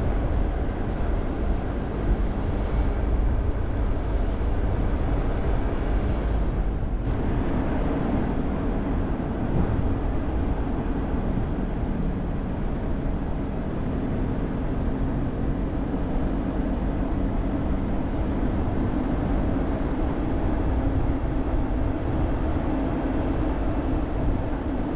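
Car driving at a steady pace: a continuous low rumble of engine and tyre road noise.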